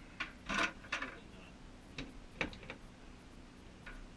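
Irregular knocks and clicks of plastic buckets and a bucket lid being handled and set down, about eight in all, the loudest about half a second in.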